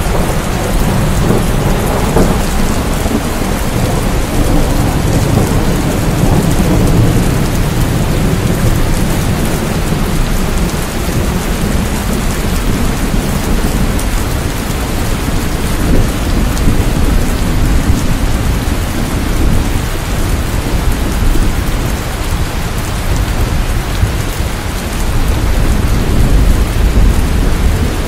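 Heavy monsoon rain pouring steadily, with a continuous deep rumble underneath.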